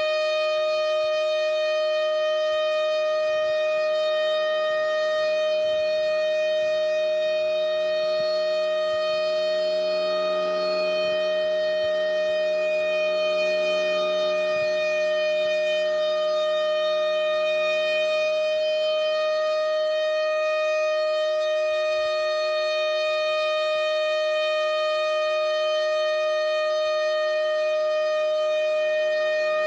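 Federal Signal Thunderbolt 1000 civil-defense warning siren sounding a steady tone at full pitch, held without rising or falling, during a siren test.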